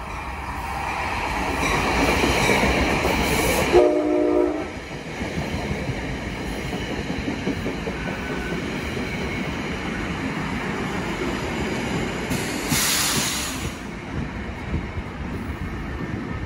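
NJ Transit commuter train approaching and rolling past the platform, its wheel and rail noise rising to a steady loud rumble. One short horn blast comes about four seconds in, and a brief high hiss comes near the end.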